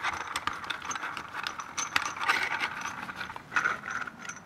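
Gloved hands screwing a slide hammer onto a bearing-puller adapter: a quick, irregular string of small metal clicks and scrapes.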